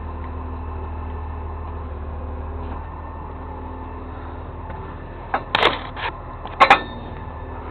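A vehicle engine running steadily at idle, with two loud knocks about five and a half and nearly seven seconds in.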